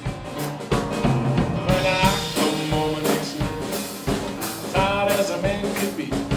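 Live traditional jazz band playing an up-tempo tune, a drum kit keeping a steady beat under the melody lines.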